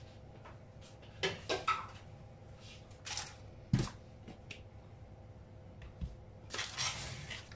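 Crumpled parchment paper rustling as it is handled, in several short bursts, with a dull knock on the worktop about four seconds in.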